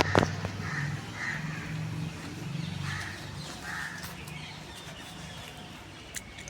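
Birds chirping in short calls over a low rumble that fades after about three seconds.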